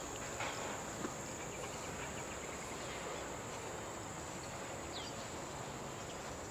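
Insects droning steadily at a high pitch, with a few faint ticks and a short falling chirp about five seconds in.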